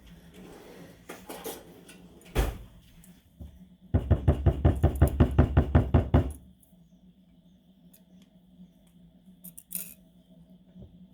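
A single knock, then a whisk beating a mix of cream of mushroom soup and milk in a bowl: a run of quick, even strokes, about six a second, for a little over two seconds.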